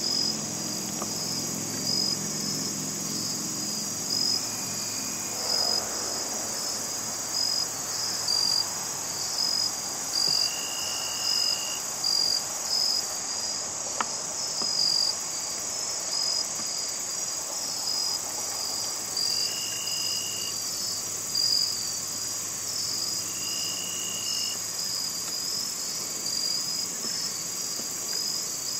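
Crickets chirping in a steady high-pitched chorus, pulsing about once a second. Three short, thin tones sound over it, one near the middle and two later on.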